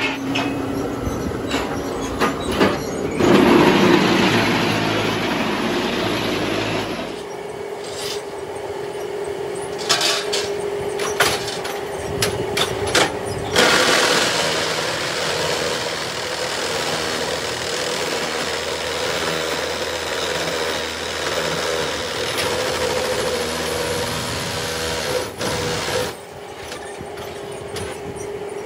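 Concrete block-making machine running: a steady motor hum, a louder, noisier stretch from about three to seven seconds in, and sharp metal knocks as its levers are worked.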